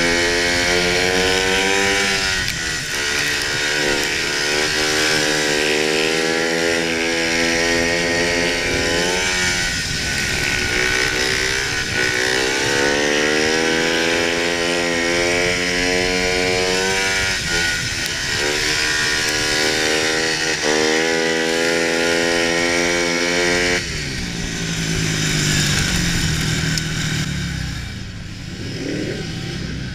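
Speedway bike's 500cc single-cylinder engine heard from a handlebar-mounted camera, revving hard on track, its pitch climbing and dropping back several times as the throttle is worked. About 24 seconds in it is shut off to a lower, uneven running as the bike slows, with wind rushing over the microphone throughout.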